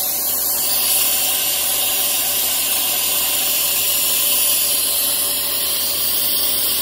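Mist coolant nozzle on a milling machine, fed by compressed air, hissing steadily as it sprays coolant at the drill.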